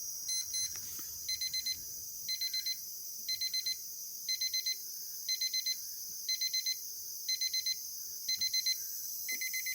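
Digital alarm clock beeping quietly in rapid groups of short high beeps, about one group a second: pairs at first, then four beeps per group from about a second in.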